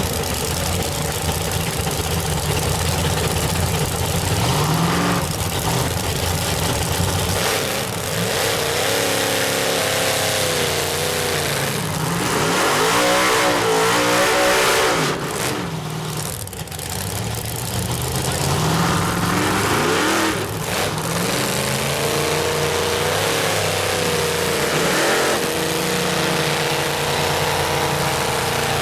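Mud truck's engine revving hard, its pitch climbing and falling several times, then holding a steady high run near the end.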